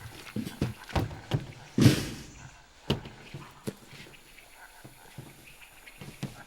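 Irregular thuds and knocks, coming quickly in the first two seconds, with the loudest a crash about two seconds in that trails off briefly, then a few sparser knocks.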